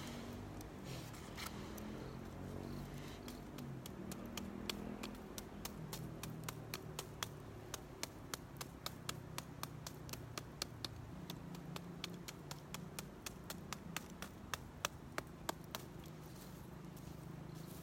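Campfire crackling: a run of sharp pops and snaps, several a second, from about three seconds in until near the end, over the low steady rumble of the flames.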